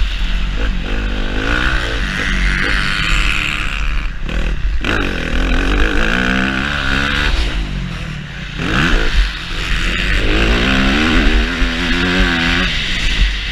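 Yamaha YZ-F four-stroke motocross bike engine under hard riding, revving up and dropping back again and again as the rider accelerates, shifts and rolls off for corners.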